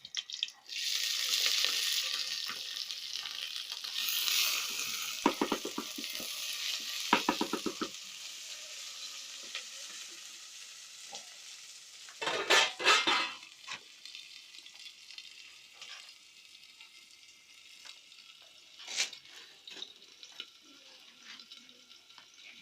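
Chopped green onions sizzling as they hit hot cooking fat in a pan. The sizzle starts loud about a second in and slowly dies down, while a spoon stirs and knocks against the pan in short bursts, twice near the middle.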